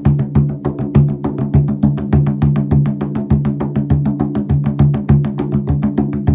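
Percussion music on a drum: fast, even strokes, about seven or eight a second, over a low sustained pitched ring.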